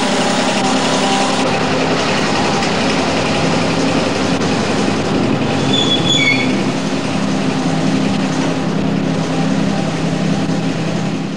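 Pemberton tourist tram, a diesel railcar, running across a timber trestle bridge: a steady rumble of wheels and engine hum, with a few brief high squeals about halfway through.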